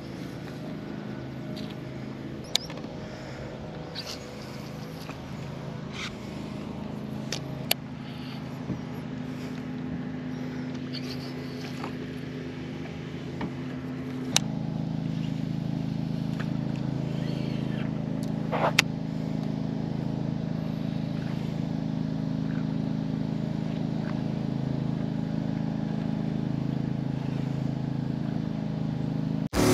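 A boat motor running steadily, with a few sharp clicks over it; the drone gets louder about halfway through.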